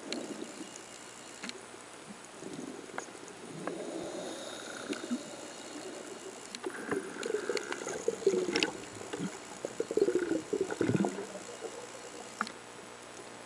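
Underwater sound picked up through a camera housing: scattered sharp clicks and crackles over a low hiss, with a stretch of irregular low gurgling and knocking that builds from a few seconds in and dies away near the end.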